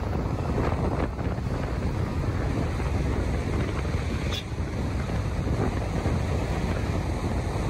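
Wind rushing over the microphone of a motorcycle at road speed, a steady, even roar with a low rumble underneath.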